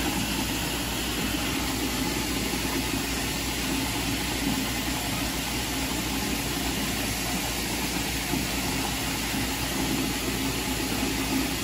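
Reverse osmosis water purification unit running steadily in its rinse cycle, flushing out disinfectant after disinfection: a constant, even machine hum.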